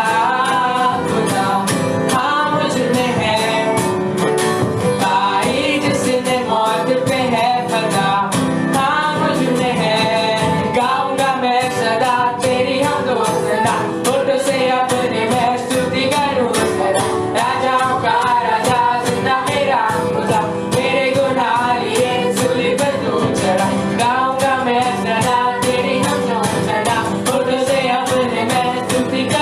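Live worship music: singing over a band with a steady, even percussion beat.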